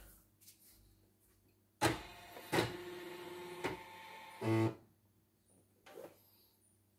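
Singer Quantum Stylist embroidery machine's embroidery unit motor whirring for about three seconds as it drives the arm carriage, with two clicks along the way and a knock as it stops.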